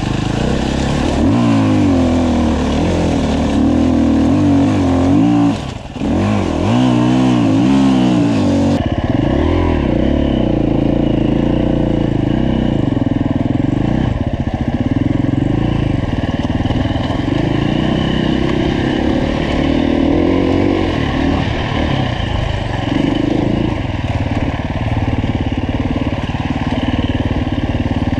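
Dirt bike's four-stroke single-cylinder engine (2015 Husqvarna FE 350) revving up and down continuously while riding, with a short drop in level just before six seconds in.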